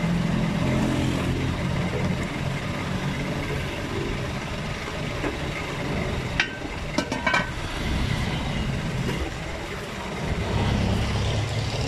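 Steady rumble of street traffic and idling engines. A little past halfway there is a quick cluster of sharp metallic clinks as an aluminium pot lid is handled on its pot.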